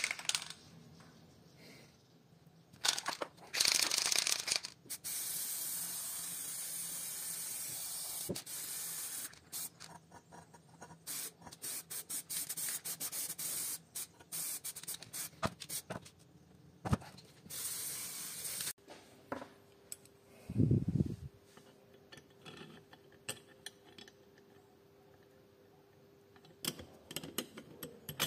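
Several hissing spray bursts, each lasting a few seconds and cutting off abruptly, with scattered clicks and handling knocks between them and a dull thump near the end.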